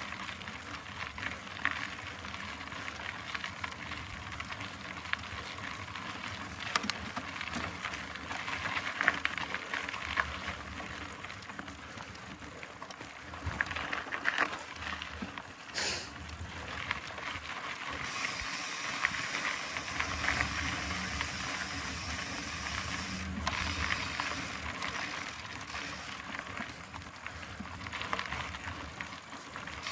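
Mountain bike in motion on a trail: the rear freehub ratchets while coasting, over a steady rolling rush with scattered clicks and knocks from the bike.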